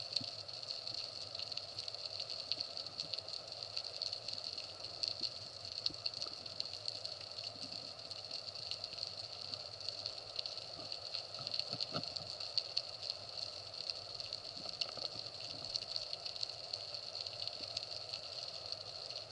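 Underwater ambience heard through a camera's waterproof housing: a steady high hiss sprinkled with dense, fine crackling ticks.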